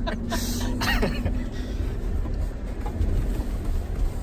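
Off-road vehicle driving over rough trail ground: a low, steady engine and drivetrain rumble with the rattle of the body over bumps.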